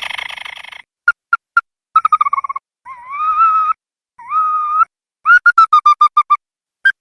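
Ruddy-breasted crake calling: a harsh rattling trill that ends just under a second in, a few short sharp notes, a fast series of notes falling slightly in pitch, two rising whistled notes, then a rapid run of about ten notes sinking slightly in pitch.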